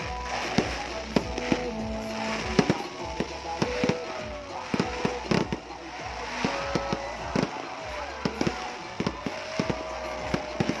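Fireworks going off in many sharp, irregularly spaced bangs and crackles, with music and voices underneath.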